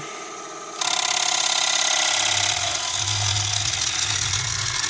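Spinning beech bowl on a Nova Saturn wood lathe, its motor whine steady. About a second in a gouge starts hollowing the inside, and a loud, steady cutting noise with a fast even flutter runs on as shavings fly.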